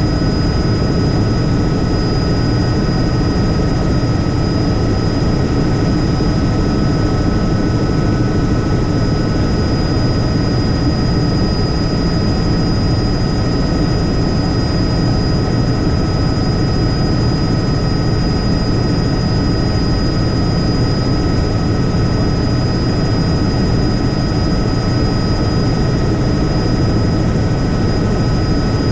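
Tour helicopter in flight, its engine and rotors making a loud, steady drone with a few thin, steady whining tones above it.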